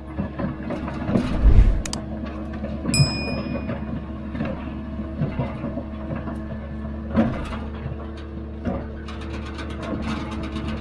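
New Holland F156.6A motor grader's diesel engine running steadily, with knocks and clanks from the machine as it works; a short high squeal about three seconds in and fast even ticking near the end.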